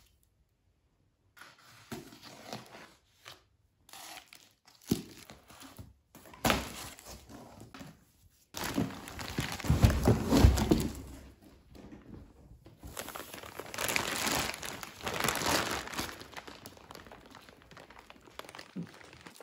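A cardboard box being opened and a compressed faux-fur bean bag chair in a plastic bag pulled out: cardboard flaps and packing tape rustling and tearing, plastic wrapping crinkling, with a couple of short thuds.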